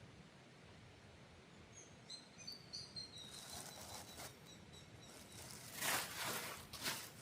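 Outdoor ambience with a bird giving a quick run of short, high chirps about two seconds in, followed by several short rustling or scuffing noises near the microphone, the loudest about six seconds in.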